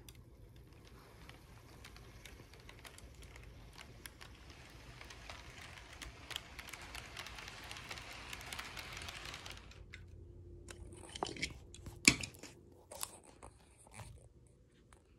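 A model freight train rolling past close by on its track: a rising rush of small wheels with fine clicking over the rail joints, which stops suddenly about ten seconds in. Then a few knocks and one sharp bump as the camera is handled and picked up.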